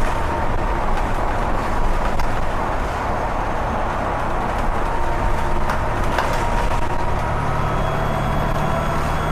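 Volvo B7TL bus's turbocharged diesel engine running under a steady low rumble, with a thin turbo whistle near 1 kHz and light rattles. Near the end a higher whistle rises in pitch as the engine pulls.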